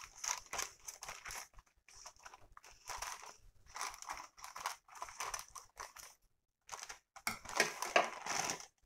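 Scissors cutting through a plastic courier mailer bag: a run of short, crisp snips with the plastic crinkling. Near the end the rustling grows louder and denser as the cut bag is handled.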